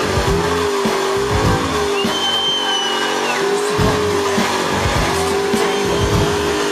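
Car engine held at high revs during a burnout, tires spinning on pavement, with a high squeal for about a second and a half, starting about two seconds in.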